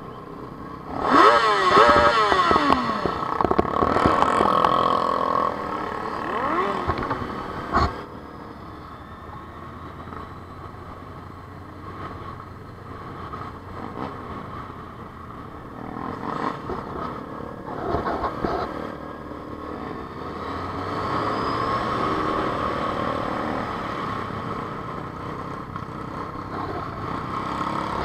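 Motorcycle engines revving in quick rising and falling sweeps for several seconds from about a second in, then running more quietly at low speed. Near the end they settle into a steadier, building tone.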